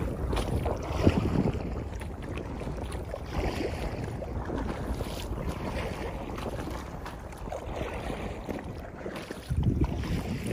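Wind rumbling on the microphone over choppy water lapping at an inflatable kayak, with a stronger gust near the end.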